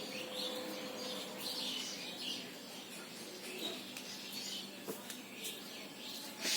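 Small birds chirping and calling, a run of short repeated chirps.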